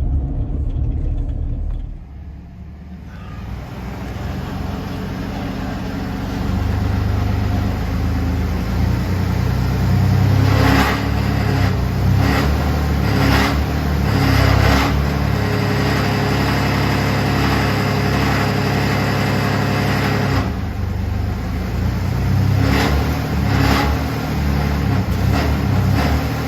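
A car driven slowly, engine running, with its note picking up about six seconds in. Short sharp rattling knocks come through several times in the middle and twice near the end, from a loose part such as a heat shield or a misaligned exhaust.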